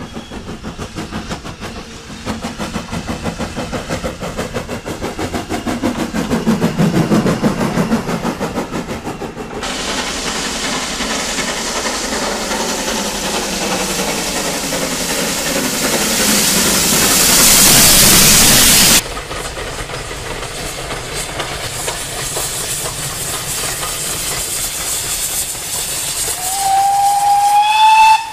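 Steam locomotives at work: first a small engine chuffing with regular exhaust beats, then a locomotive passing at speed with a loud rushing hiss of steam that swells and cuts off, then a train running past. A steam whistle sounds near the end, rising slightly in pitch.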